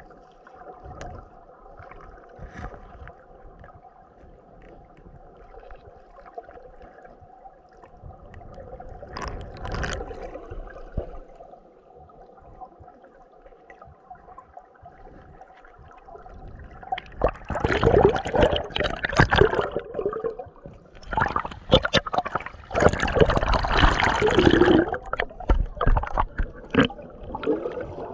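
Stream water gurgling and trickling around a snorkeller's camera, faint with a low steady hum at first. Over the second half it turns into loud, choppy splashing and bubbling.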